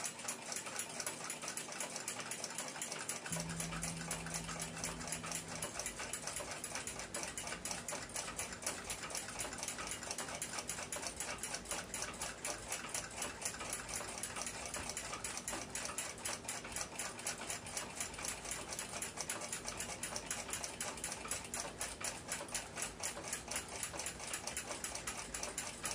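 A clock ticking rapidly and evenly, a fast escapement beat that keeps going throughout. A short low hum sounds for a couple of seconds near the start.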